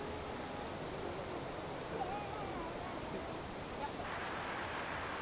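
Steady rush of river water, with faint distant voices wavering over it in the first few seconds; about four seconds in, the rushing becomes louder and brighter.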